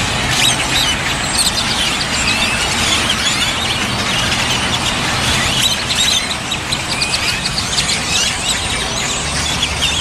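A large flock of great-tailed grackles calling all at once: a loud, dense chorus of squeaky whistles and sliding calls, with bursts of rapid clattering rattles.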